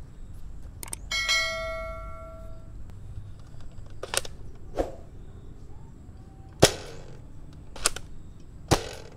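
Nerf Elite Dual-Strike blaster being fired, a spring-powered toy dart gun: five sharp pops a second or so apart, the loudest in the middle. About a second in, a bright bell-like ding rings for about a second and a half.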